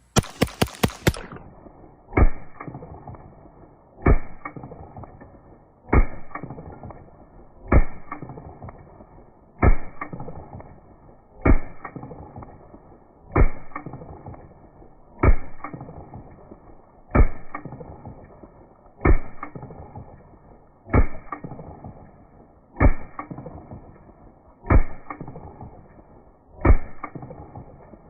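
Freedom Ordnance FX9 9mm AR-style pistol firing a quick string of about six shots in the first second. Then the gunfire is played slowed down: deep, muffled shots about every two seconds, each with a long fading tail.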